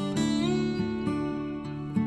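Background music played on acoustic guitar, plucked and strummed.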